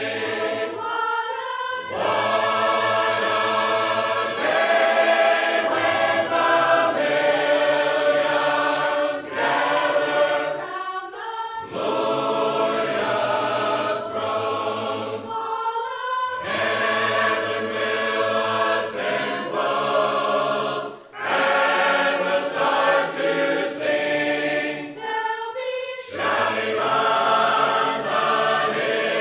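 A church congregation of men and women singing a hymn a cappella in parts, with no instruments. The phrases are held for a few seconds each, with short breaks between them.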